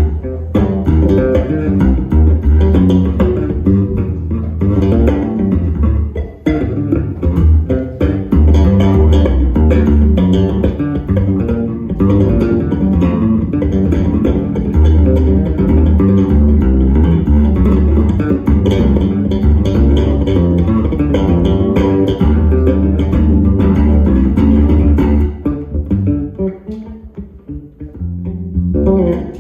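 Electric bass guitar played solo, a busy, continuous line of plucked notes and chords that softens for a few seconds near the end before picking up again.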